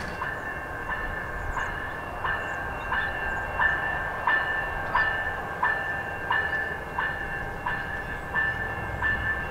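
A bell ringing at a steady beat, about three strokes every two seconds, over the low rumble of an approaching VIA Rail Siemens Charger passenger train.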